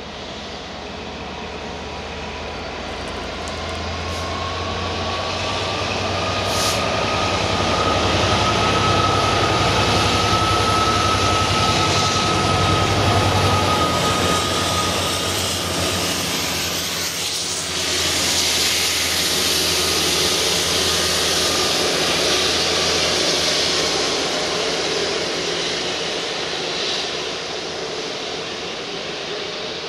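Train worked by two GBRf Class 66 diesel locomotives passing close by. Their EMD two-stroke V12 engines rumble under a steady whine. The sound builds as the train approaches, is loudest with a brief dip about two-thirds of the way through, then fades as it runs away.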